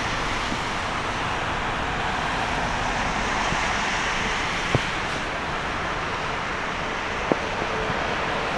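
Airbus A320neo's CFM LEAP-1A jet engines running as the airliner slows on the runway after landing: a steady rushing noise, with two sharp clicks and a faint engine whine coming in near the end.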